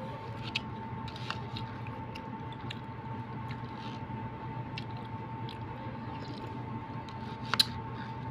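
A person chewing soft food while spooning it from a plastic cup: quiet chewing and light clicks of the plastic spoon against the cup, with one sharp click a little before the end. A steady hum runs underneath.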